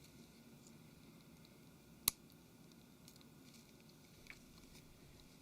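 A single sharp click about two seconds in, then a much fainter tick near the end, against near silence. This is a flex cable's press-fit connector being pressed onto its socket on the Samsung Galaxy Note 3's board.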